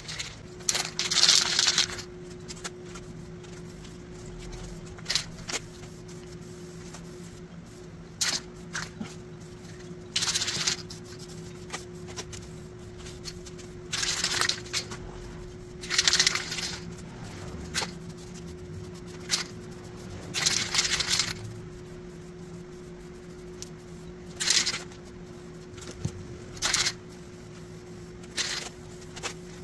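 Aerosol spray-paint can spraying in short hissing bursts of about a second each, around ten times, as coats go onto mower parts. A steady low hum runs underneath.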